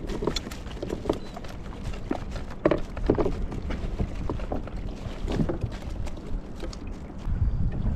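Sea water lapping and slapping against a plastic kayak hull, with wind on the microphone and scattered small clicks and knocks of fishing tackle being handled. The wind gets louder near the end.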